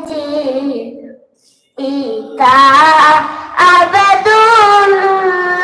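A boy singing a devotional naat in praise of the Prophet into a microphone, holding long, wavering notes. He breaks off for a breath about a second and a half in, then resumes louder.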